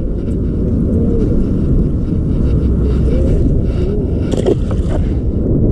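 Wind buffeting the microphone, a steady low rumble, with a couple of brief knocks about four and a half seconds in.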